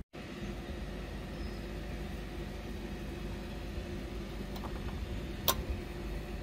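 A spark plug boot is pushed onto a lawn mower engine's spark plug and seats with a single sharp click about five and a half seconds in. A steady mechanical hum runs underneath.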